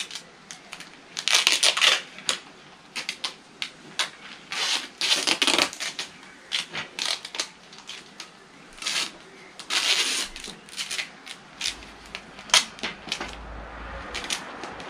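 Duct tape being pulled off the roll in three rasping bursts, each half a second to a second long, with many small clicks and knocks from handling the wooden frame in between.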